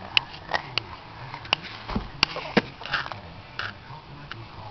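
A baby making a string of short, sharp sniffing noises through his nose, about ten at irregular intervals.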